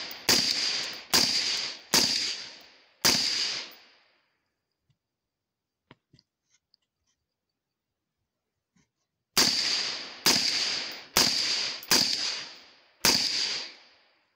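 Suppressed rifle firing: four shots in about three seconds, a pause of about six seconds with a few faint clicks, then five more shots. Each shot trails off over about a second.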